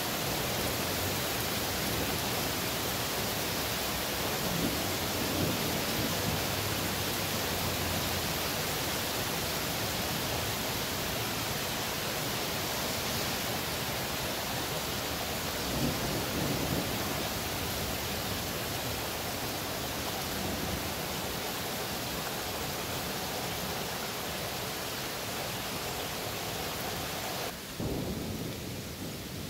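Steady rain hissing through a thunderstorm, with low rumbles of thunder about five seconds in and again around sixteen seconds in. Near the end the rain's hiss drops suddenly.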